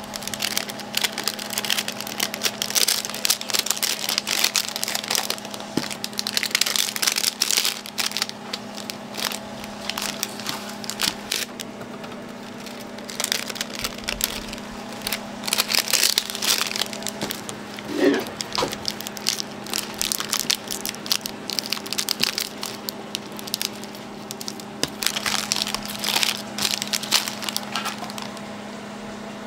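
Dense crinkling and crackling from something being handled, coming in bursts with short lulls, over a steady low hum.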